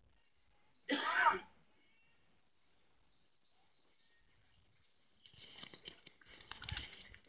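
A hushed kneeling crowd with faint bird chirps; about a second in, one short cough-like burst from a person; for the last two seconds, rustling and handling noise on the phone's microphone as the camera moves.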